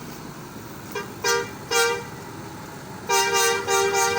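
Bus 'telolet' multi-tone musical air horn sounding. A short blip comes about a second in, then two short toots, then a longer blast broken into three parts from about three seconds in, with two pitches sounding together.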